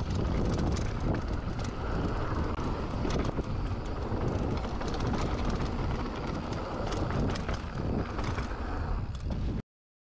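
Mountain bike riding fast down a dirt trail: tyres crunching over loose dirt and the bike rattling, under heavy wind buffeting on the microphone, cutting off suddenly near the end.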